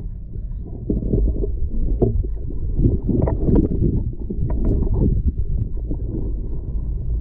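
Water noise picked up underwater through a waterproof camera housing: a muffled low rumble with irregular knocks and thumps as swimmers move close by. It is busiest from about a second in until a couple of seconds before the end.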